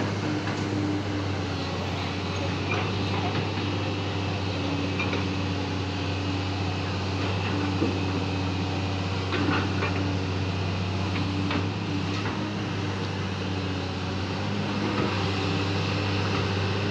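Excavator's diesel engine running steadily, with a few light knocks.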